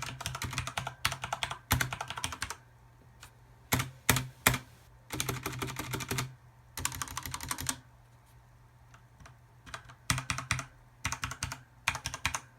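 Corsair K70 RGB mechanical keyboard with Cherry MX Red linear switches being typed on in quick flurries of keystrokes, with short pauses between them and a few single key presses near the middle.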